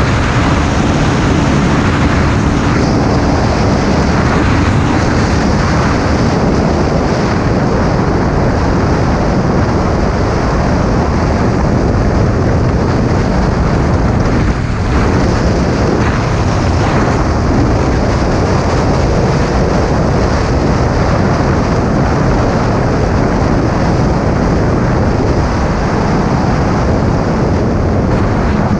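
Loud, steady wind rush on the microphone over the Honda Supra GTR 150's single-cylinder engine running at high speed in sixth gear, the bike slowing from about 118 to about 92 km/h.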